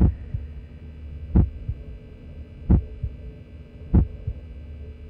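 Slow heartbeat sound effect: a strong low thump followed by a softer second beat, repeating about every 1.3 seconds, over a steady low hum.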